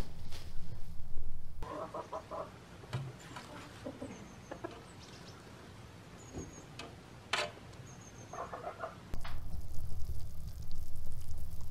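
Chickens clucking in a farmyard, in two short bursts about two seconds in and again near the end of the quiet stretch, with a few brief high chirps between. Before and after, a loud low rumbling noise covers everything.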